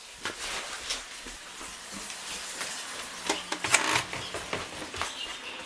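Rustling and handling of a nylon backpack being picked up, then irregular footsteps going down wooden stairs, with a cluster of louder knocks about three and a half seconds in. A low hiss from the camera microphone lies under it all.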